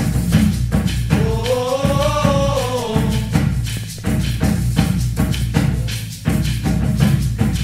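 Instrumental passage of a bambuco arrangement: a band playing a steady, dense rhythm with percussion and bass. About a second in, a melodic line rises and falls over it for a couple of seconds.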